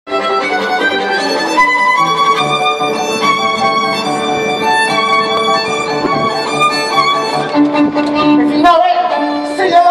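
Amplified live band music, a lead melody of quick changing notes over a steady accompaniment, moving to long held notes near the end.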